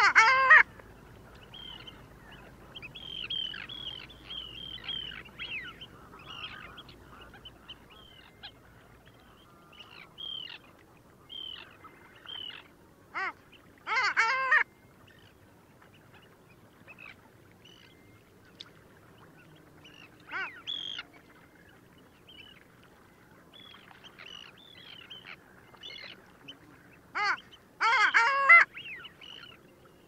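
Long-tailed ducks calling: three loud call bouts, right at the start, about halfway through and near the end, with fainter, higher calls scattered between them.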